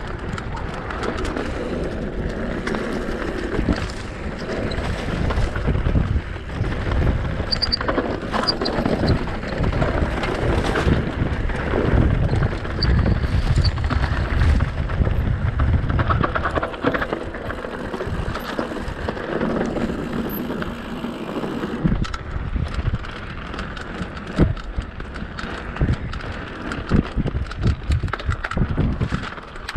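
Mountain bike rolling over a rough dirt trail: tyres crunching over stones and ruts, with frequent knocks and rattles from the bike, and wind buffeting the microphone.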